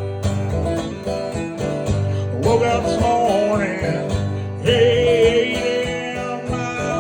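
Acoustic guitar strumming a country song, with a long, wavering sung note entering about two and a half seconds in and held through most of the rest.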